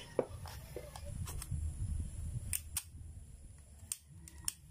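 A string of short, sharp clicks, about nine in all, spaced irregularly over a low background rumble.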